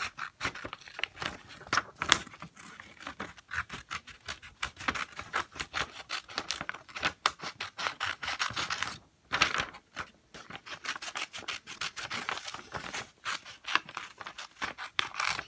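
Scissors snipping through a sheet of paper to cut out a circle: many short, sharp snips in quick succession, with a couple of brief pauses.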